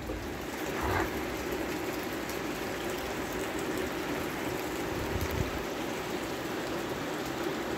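Light rain shower falling steadily, a continuous even hiss that sets in at the start.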